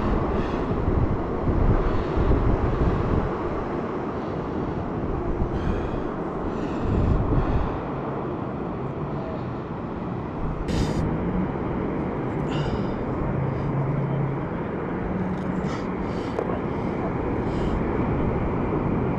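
Wind rumbling on a chest-mounted camera's microphone over the wash of the sea on a beach, with a few short clicks and knocks.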